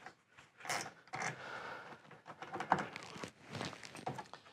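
Light, irregular clicks and brief rustling as a wrench and bracket hardware are handled while a bolt on the front fascia stabilizer bracket is adjusted.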